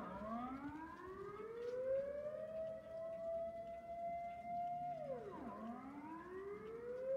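Dutch civil-defence warning siren sounding its monthly test signal, wailing up and down: the pitch drops sharply right at the start, climbs back over a couple of seconds and holds, drops again about five seconds in, then climbs once more near the end.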